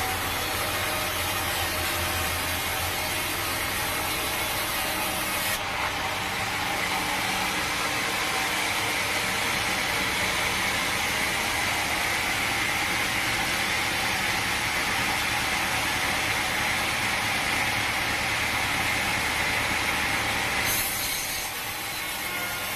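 Sawmill saw cutting through a log of teak, a steady noisy run of blade in wood with machinery underneath. The sound changes abruptly about six seconds in and again near the end.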